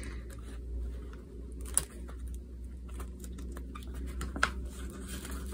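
Paper banknotes and a clear plastic cash envelope being handled: soft rustling with scattered light ticks as bills are slid into the envelope.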